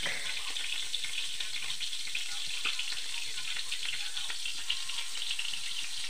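Frog adobo sizzling in a metal pan: the sauce frying with a steady crackling sizzle.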